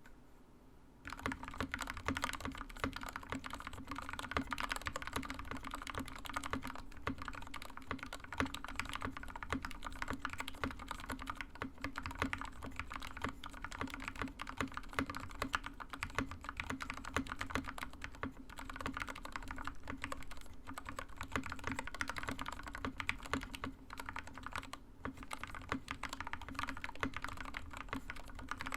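Continuous fast typing on a custom mechanical keyboard with lubed Stealios linear switches, a brass plate and KAT DP0835 keycaps. The dense key clacks begin about a second in, with a couple of brief pauses.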